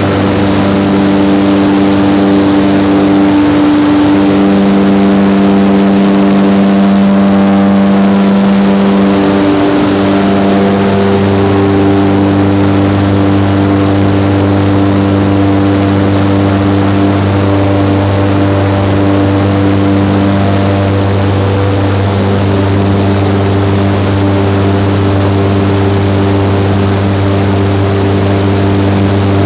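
A mine's main mechanical ventilator, a large ventilation fan, running with a loud, steady drone and a deep hum.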